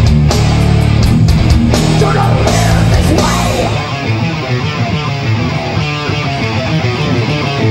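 Death metal band playing live: distorted electric guitars, bass and drums. About halfway through, the drums and cymbals drop out, leaving the guitars ringing over the bass.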